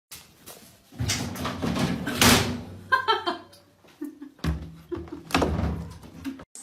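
A series of loud knocks and thuds, like a door banging, with a few brief higher-pitched sounds in between.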